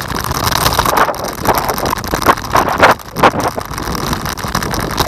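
Wind buffeting the microphone of a scooter rider on the move, over a low rumble from the ride, with gusts that swell louder around the middle.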